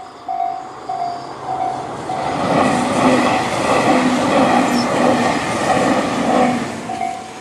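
Level crossing electronic warning bell sounding Tobu's 'C' tone at a slow tempo, about one ring every 0.6 s, while a Tobu 500 series electric train (sets 515F+511F coupled) passes over the crossing. The train noise rises about two seconds in, with a rhythmic clatter of wheels over the rail joints, and dies away near the end as the bell keeps ringing.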